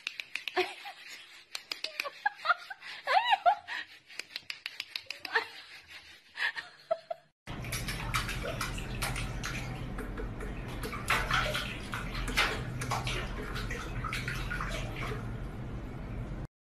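A kitchen tap runs steadily into a stainless-steel sink, starting about halfway through, with a few louder splashes as a cat paws at the stream. Before that come a string of light clicks and a few short, high squeaks.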